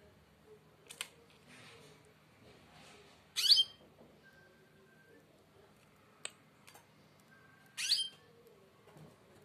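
Goldfinch nestlings giving two short, loud, high begging calls, one about three and a half seconds in and another about four seconds later, as they are fed from a syringe. Two faint clicks come between them.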